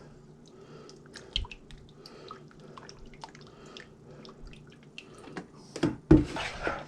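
Buttermilk dripping and squelching as it is poured over and worked into seasoned chicken pieces in a bowl: scattered soft wet clicks and drips. A short voice sound comes near the end.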